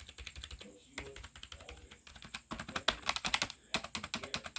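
Old A4Tech computer keyboard being typed on: rapid key clacks in quick runs, densest in a fast flurry about halfway through.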